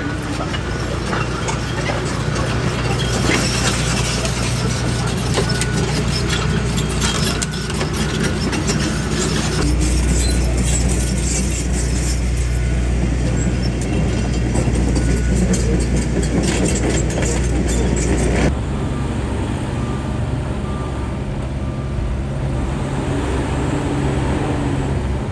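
A John Deere tracked excavator's diesel engine runs steadily while brick and debris crash and clatter down from a wall being torn apart. The clatter stops abruptly about two-thirds of the way through, leaving the engine running.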